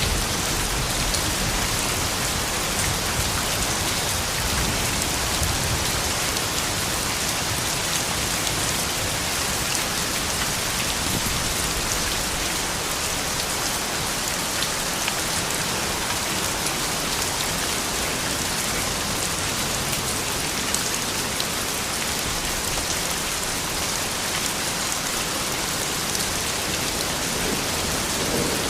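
Steady soft rain falling, an even hiss with scattered drop ticks.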